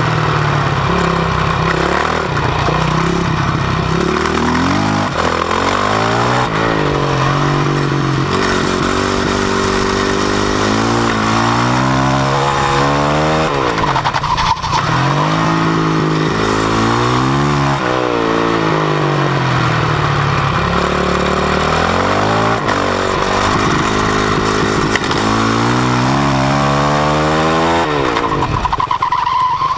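Yamaha YZ450F single-cylinder four-stroke supermoto engine, heard close up from the bike. Its revs rise and fall over and over as it accelerates and backs off around a track, with step changes between gears.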